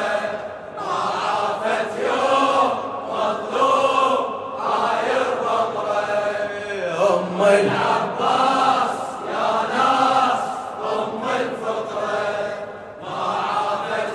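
Male voices chanting in chorus, a drawn-out sung refrain of a Shia mourning chant (latmiya), voices only with no beat.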